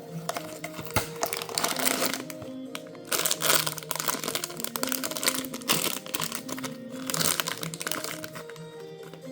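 Packaging crinkling and crackling as it is handled and opened, in several spells with a few sharp clicks, over background music with a steady melody.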